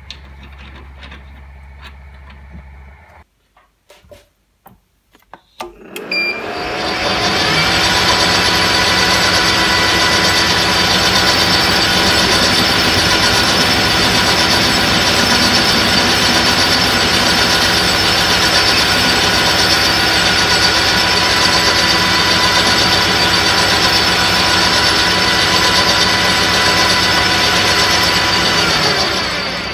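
Metal lathe running: its motor and spindle spin up about six seconds in, run with a steady whine of several held tones, and run down near the end.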